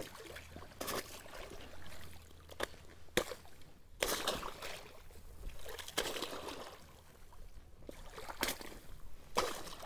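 Booted foot stomping through thin lake ice about an inch thick: about half a dozen sharp cracks as the ice breaks, with water and slush sloshing in between.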